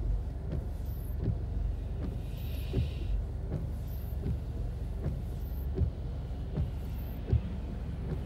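Car windshield wipers with silicone rubber blade refills sweeping back and forth, a soft knock about every three-quarters of a second as the arms reverse, with no chattering or squeal from the blades. Underneath is a steady low rumble from the car, and a brief hiss comes about two and a half seconds in.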